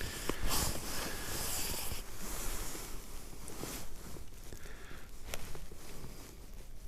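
Wind buffeting the microphone, with rustling and a few small clicks, likely from handling the rod and clothing. The wind is strongest from about half a second to two seconds in.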